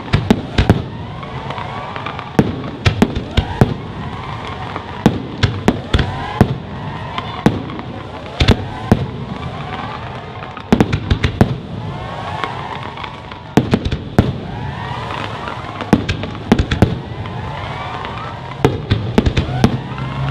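Aerial fireworks display: shells bursting in a fast, irregular run of sharp bangs, sometimes several a second, over a continuous background din of the show.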